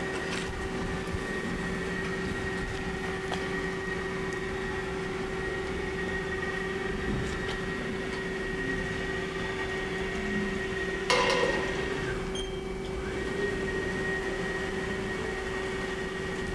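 A 2007 Haas SL-40 CNC lathe running with a steady hum. About eleven seconds in there is a single sudden clunk, followed by a brief rattle.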